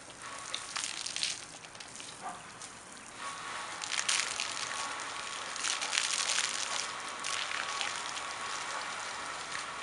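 Water spraying from a garden hose and spattering on wet concrete, a steady hiss that grows louder about three seconds in, with brief surges.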